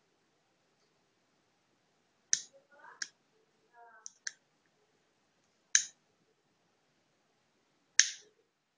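About six short, sharp clicks at uneven intervals, with a couple of faint brief chirps between the first few.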